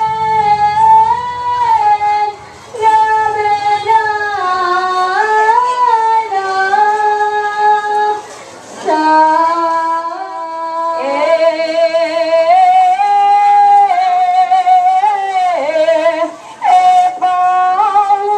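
A high voice singing a slow melody in long held notes, with short pauses between phrases.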